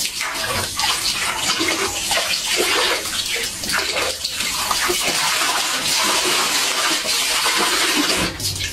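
Water gushing from a spigot on a post and splashing onto the ground, while a large dog holds the spigot's lever open with its mouth to drink from the stream.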